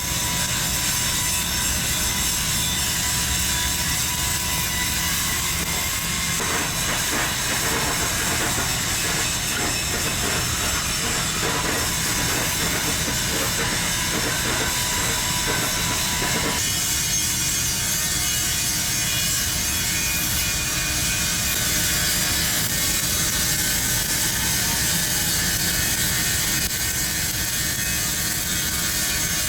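Flux-cored arc welding a capping pass on pipe: the arc crackles and hisses steadily, with a shift in tone about sixteen seconds in.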